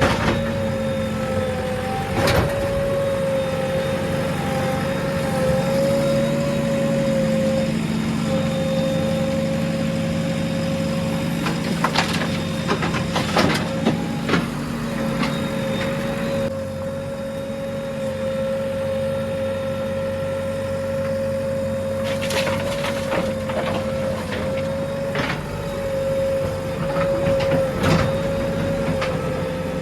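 JCB 3DX backhoe loader's diesel engine running steadily under work, with a constant hum over the engine note. Sharp knocks and clanks cut in now and then, bunched about twelve seconds in and again in the last third.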